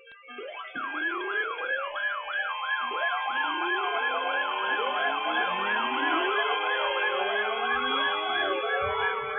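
Several sirens sounding together, starting about half a second in: one with a fast up-and-down wail of about three cycles a second, a steady high tone, and lower sirens rising slowly in pitch one after another.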